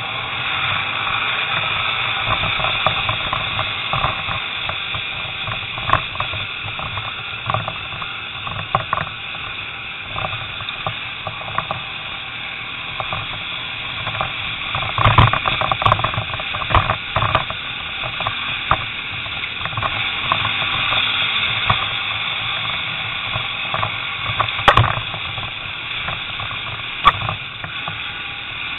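Hissy, muffled onboard sound of an off-road motorbike ridden along a rutted dirt lane: a steady drone of engine and wind, broken by many sharp knocks as the bike and camera jolt over the ruts, the loudest about 15 and 25 seconds in.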